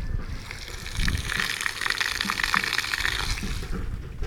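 Water from a garden hose splashing onto a concrete slab: a steady hissing spatter that dies away near the end.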